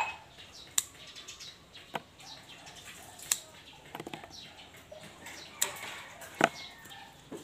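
Small scissors snipping the stems of a turtle vine plant: about six short, sharp snips, roughly a second apart.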